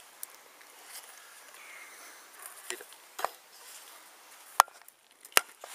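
Sharp knocks of a wooden baton striking the spine of a golok machete set in a log, batonning to split it for firewood: a few separate strikes in the second half, the last two the loudest.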